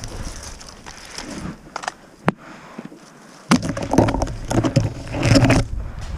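Rustling and knocking of gear and movement close to the microphone over a low rumble, with one sharp crack about two seconds in. The rumble drops away for about a second, then louder bursts of rustling and knocking follow.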